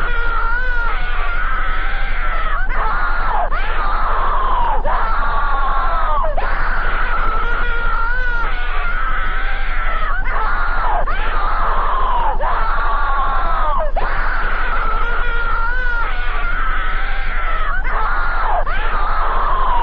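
Distorted, heavily processed screaming that never breaks, its pitch swooping down again and again about once a second, over a steady low hum.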